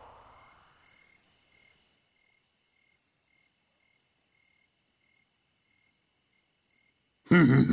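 Faint crickets chirping, an even high trill pulsing about twice a second. A short, loud sound cuts in near the end.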